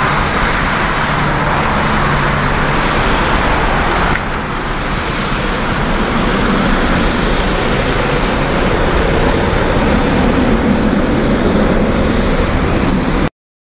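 Airbus A330-300's twin General Electric CF6-80E1 turbofans at take-off thrust: loud, steady jet engine noise as the airliner lifts off and climbs away. The level dips slightly about four seconds in, and the sound cuts off suddenly near the end.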